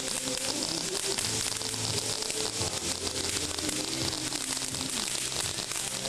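Several ground fountain fireworks hiss steadily as they spray sparks, the hiss thick with fast small crackles from the crackling stars they throw out.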